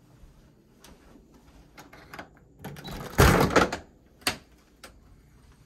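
An exterior door being opened: the handle and latch work, and the door pulls free of its frame in a loud rushing rattle about three seconds in, followed by a sharp click a second later.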